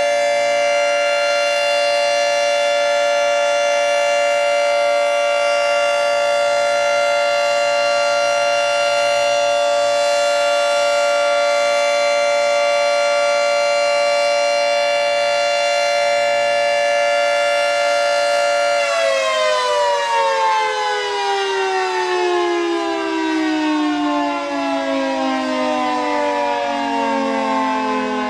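Tornado warning siren sounding a loud, steady chord of several tones, then winding down with the pitch falling steadily from about 19 seconds in.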